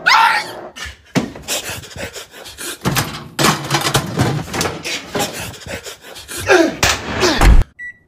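A rapid jumble of knocks and thuds with a couple of short falling cries, ending in short electronic beeps from a microwave keypad as its buttons are pressed.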